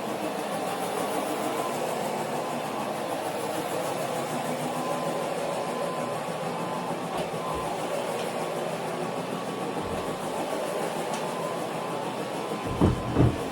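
Carpet cleaning machine running steadily with a constant hum and whirr. Two short low thumps sound near the end.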